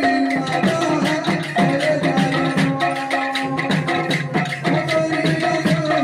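Live Sambalpuri kirtan music: a stepping melody carried over a busy, steady beat of hand drum and jingling percussion.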